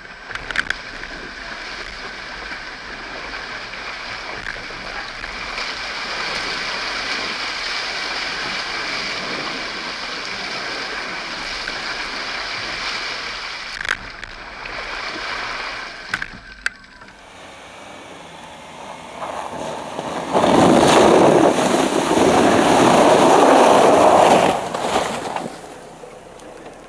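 Off-road vehicle driving through snowy, water-filled ruts, heard as a steady rumble of sloshing and ride noise. After a brief break comes a loud rush of splashing water and slush lasting about five seconds, as the Jeep Wrangler drives through an icy puddle without fully breaking the ice.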